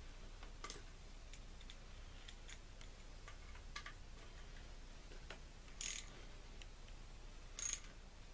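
Small ratchet wrench with a 7/32 Allen socket working the front bearing retainer bolts on a transmission case: faint scattered clicks, with two louder short ratchet runs about six and seven and a half seconds in.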